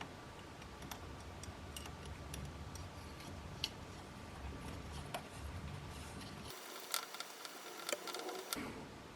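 Scattered faint clicks and taps of small objects being handled, with a few sharper clicks about two-thirds of the way through.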